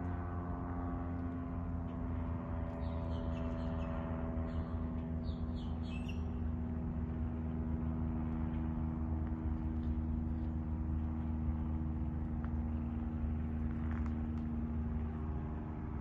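Steady, low engine drone, with a few short high bird chirps about three to six seconds in.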